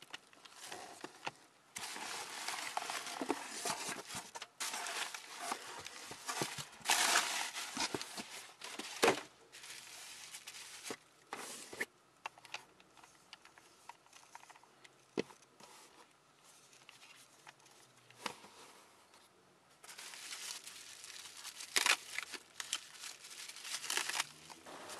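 Bubble wrap and newspaper packing crinkling and rustling in irregular spells as items are lifted out of a cardboard box, with a few light knocks. It goes quieter for a stretch in the middle, then bubble wrap crinkles again near the end as a small wrapped item is unwrapped.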